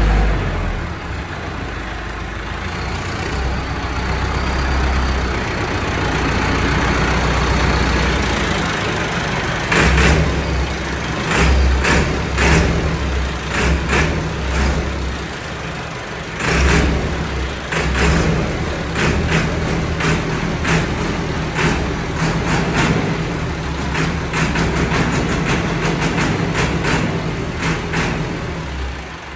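Massey Ferguson 385 4x4 tractor's diesel engine running steadily, its note swelling louder about ten seconds in and again a few seconds later. Repeated short sharp clicks or knocks sound over the engine through the second half.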